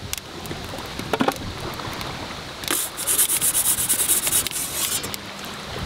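Metal pizza peel scraping across the floor of an Ooni Karu 12 pizza oven as a pizza is slid in: a rasping scrape starting about two and a half seconds in and lasting about two seconds. A few light knocks come before it.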